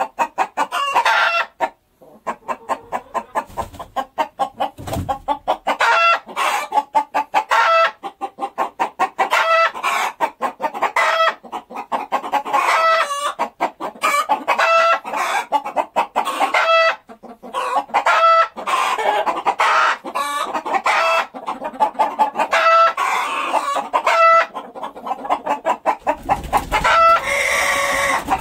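Hens clucking in quick, repeated calls, about four a second with brief pauses, and a louder, drawn-out call near the end.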